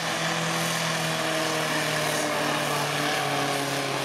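Pulling tractor's diesel engine running flat out as it drags the weight-transfer sled, its pitch slowly falling as the engine is pulled down under the growing load.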